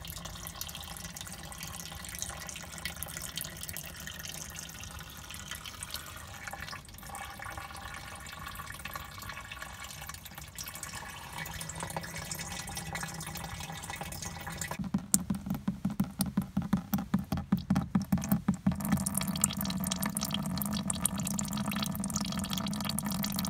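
Freshly pressed apple juice trickling from a fruit press's spout into a vessel below. Past the middle comes a quick run of splashing drips, about four a second, and then a louder, steadier pour.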